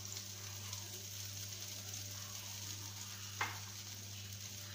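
Chopped onions frying in oil make a steady sizzle in the pan while milk mixed with cornflour is poured in. There is a steady low hum underneath, and a single sharp clink comes about three and a half seconds in.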